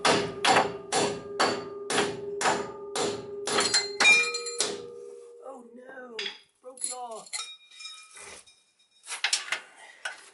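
A hammer striking steel in a steady run of about ten light taps, roughly two a second, each ringing on with a metallic tone. This is followed by a few short mumbled vocal sounds and some scattered knocks near the end.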